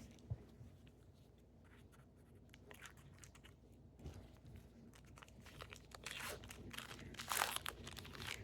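Baseball card pack wrapper being handled and torn open: faint crinkles and small clicks, then a louder crinkling tear about six seconds in.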